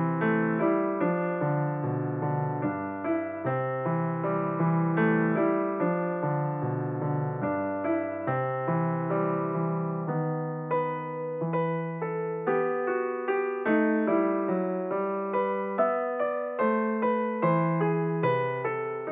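Background music: a solo piano piece playing a steady run of single notes over held bass notes.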